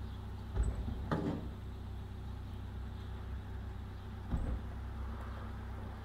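Steady low outdoor rumble of a suburban street, with three short low thumps, two early and one about four and a half seconds in.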